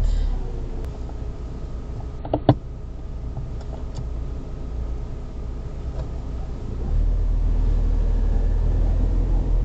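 Car engine running, heard inside the cabin as a steady low rumble, with a sharp click about two and a half seconds in. About seven seconds in the low rumble grows clearly louder as the car is set in motion for the reverse manoeuvre.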